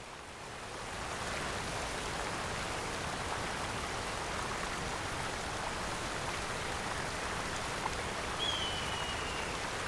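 Waterfall splashing down a cliff onto rock: a steady rush of falling water that fades in over the first second. Near the end comes a brief faint high whistle that falls slightly in pitch.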